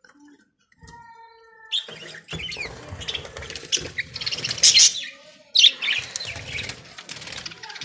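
Budgerigars chirping and chattering, a dense run of quick high calls that starts about a second and a half in.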